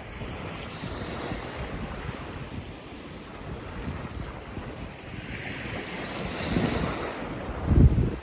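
Ocean waves washing on a shore, with wind buffeting the microphone. A wave swells up about five to seven seconds in, and a loud low gust hits the microphone near the end.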